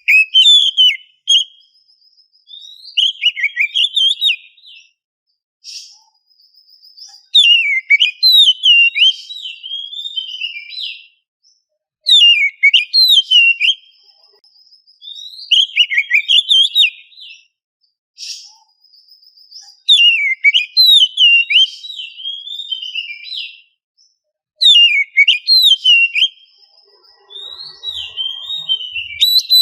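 Oriental magpie-robin singing: loud, fast whistled phrases of rising and falling notes, each phrase lasting about two seconds and followed by a short pause, repeated over and over.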